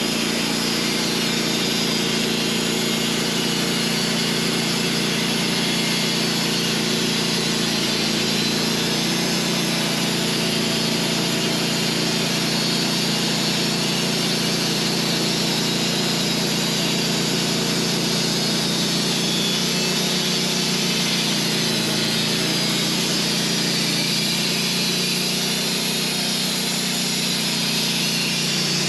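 Engine-driven band sawmill running steadily under load, its blade sawing through a honey locust log.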